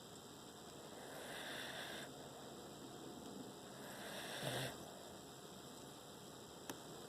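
A sleeping pet snoring softly: two slow, noisy breaths about three seconds apart, the second ending in a low snore.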